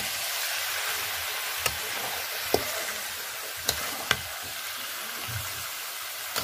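Marinated chicken pieces sizzling in hot oil in a kadai as they are stirred, with a few sharp knocks of the stirring spoon against the pan.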